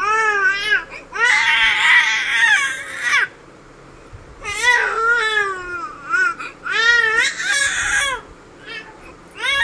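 Infant crying in a string of high, wavering wails, each up to a couple of seconds long, with short pauses for breath between them. The longest and loudest wail comes about a second in.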